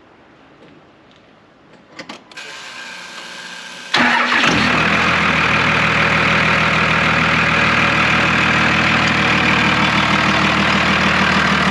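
1999 Dodge Ram's Cummins 5.9 L inline-six turbodiesel being started. A few clicks and a softer steady whir come about two seconds in, then the engine fires about four seconds in and settles into a steady idle.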